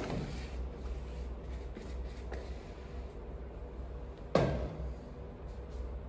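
A plastic mixing bowl and spatula knocking lightly against the cake tin while the last batter is scraped out, then one sharp, louder knock with a short ring about four seconds in as the bowl is set down on the stainless steel counter. A steady low hum runs underneath.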